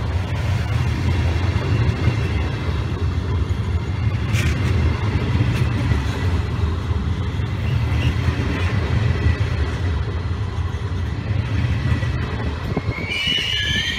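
Train passing close by: a steady low rumble, with a single knock about four seconds in. About a second before the end, high warbling tones come in.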